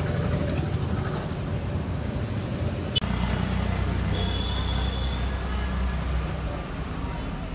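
Steady low hum of a running engine, with a single sharp click about three seconds in.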